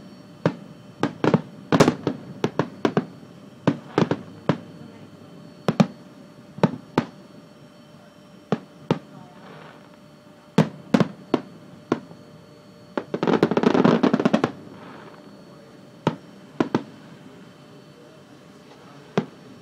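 Fireworks bursting overhead: a string of sharp, separate bangs at irregular intervals, with a dense burst of crackling lasting about a second and a half about two-thirds of the way through.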